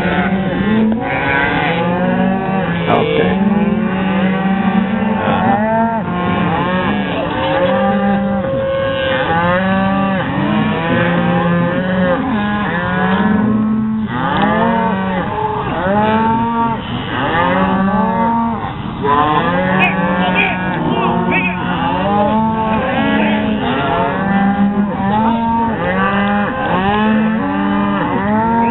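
A herd of cattle bawling, many moos overlapping with no pause, while calves are roped and held down for branding.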